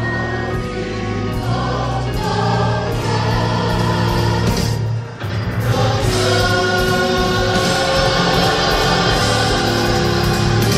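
Gospel choir singing long held notes, with a short break about five seconds in.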